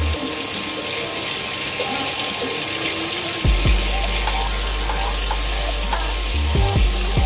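Water running steadily from a kitchen tap.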